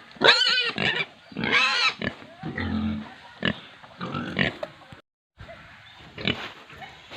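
Pigs squealing: two loud, high, wavering squeals in the first two seconds, then a low grunt and quieter short calls. The sound cuts out briefly about five seconds in before fainter grunting resumes.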